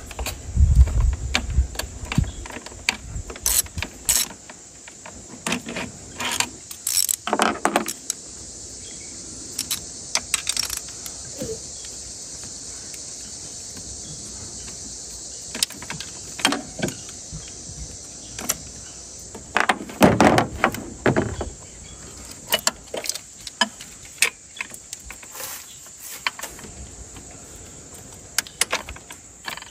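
Ratchet and socket working the small nuts of a throttle cable bracket in an engine bay: scattered clicks and metallic clinks at an irregular pace, with a few louder clatters of tool on metal.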